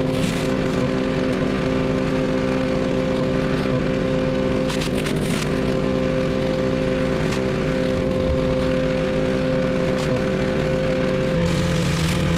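Petrol pressure washer engine running steadily under load, with the hiss of the spray; its tone changes slightly near the end.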